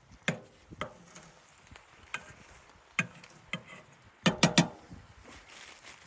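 A series of irregular sharp knocks and clicks, with a quick run of four louder ones about four and a half seconds in.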